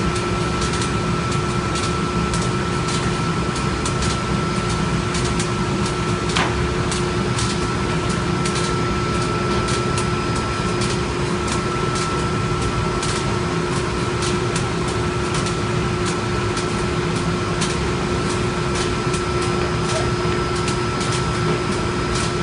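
Industrial finishing-line machinery running steadily: a constant mechanical hum with two held tones, one low and one higher, and many light clicks scattered throughout.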